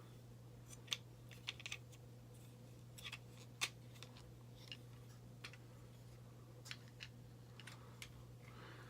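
Scattered light clicks and taps of plastic parts on a Transformers Hot Rod action figure being handled and snapped into place during its transformation, over a steady low hum.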